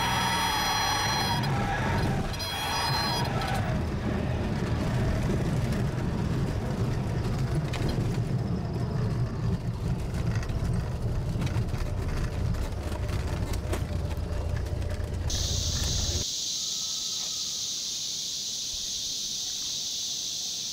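A Cessna 182's six-cylinder piston engine and propeller running as the plane rolls along a grass strip, heard from the cockpit. The propeller tone shifts in pitch in the first few seconds, then gives way to a steady rumble. About sixteen seconds in the engine cuts away to a steady high insect buzz.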